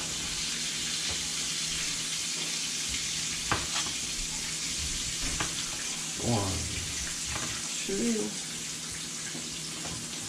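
Steady hiss of bluefish chunks frying in hot oil, with a few light knife taps on a plastic cutting board as a tomato is sliced.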